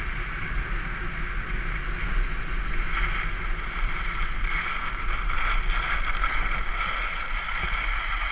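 Wind buffeting a body-worn action camera's microphone with a steady low rumble, over the hiss and scrape of skis carving on groomed snow at speed. The scraping grows louder and comes in surges from about three seconds in.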